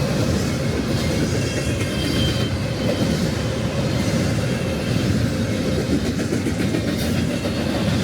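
BNSF freight train's cars rolling steadily past on the mainline.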